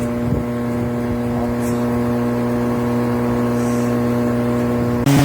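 LiTHELi 40V cordless brushless lawn mower running with a steady electric hum from its motor and blade. Right near the end the sound jumps suddenly louder and a little higher in pitch.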